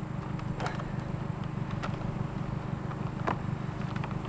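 A steady low engine hum, with a few light clicks and knocks: one about half a second in, one near two seconds and a sharper one a little after three seconds.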